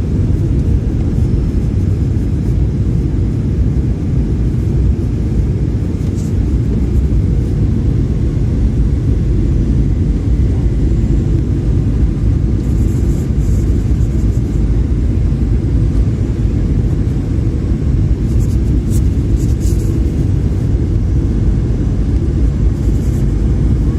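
Steady low rumble of engine and airflow noise inside the cabin of a Boeing 737-800 in flight, with a few faint brief high ticks.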